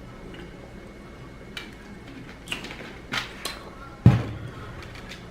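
A few short clicks and taps, typical of handling fried food and its takeout containers while eating, with one heavy knock about four seconds in.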